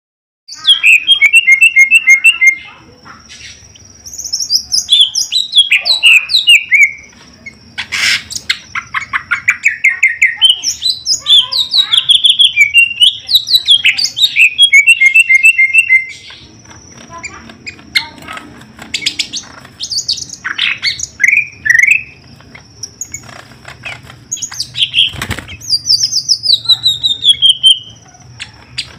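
Caged green leafbird (cucak ijo) singing loudly: rapid chattering runs of repeated notes, trills and falling whistled phrases, in bursts with short pauses between them.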